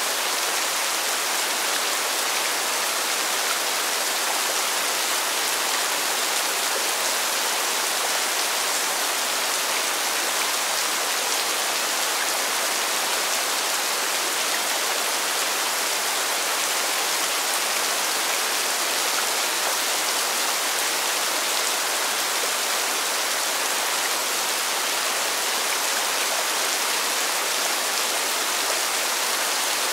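Steady rain falling on pavement: an even, unbroken hiss of many drops, with no changes in strength.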